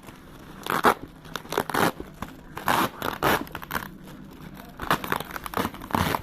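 Parcel wrapping being pulled and torn by hand in short, irregular bursts of rustling and ripping, while the loose end of the wound-around wrap is hunted for.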